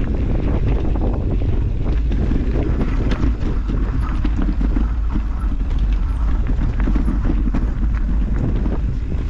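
Mountain bike riding over a rough, rocky trail: a steady stream of irregular knocks and rattles as the tyres and bike hit stones, under a loud rumble of wind on the microphone.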